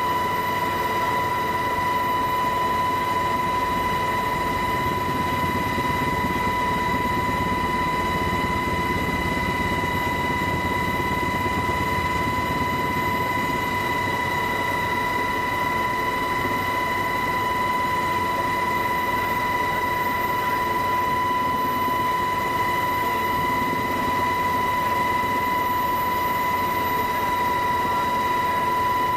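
Steady high whine of an aircraft's engine heard from on board, one constant pitch with overtones above it, over a low rumbling noise.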